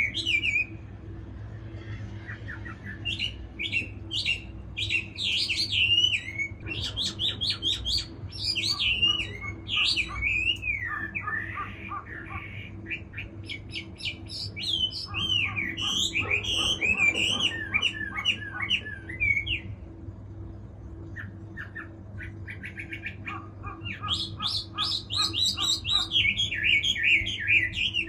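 Chinese hwamei (Garrulax canorus) singing long runs of loud, varied whistled phrases. The song pauses briefly about two seconds in and again around twenty seconds in.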